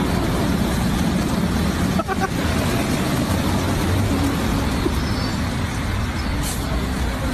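Automatic car wash gantry running, its large rotary brushes spinning with a steady mechanical noise.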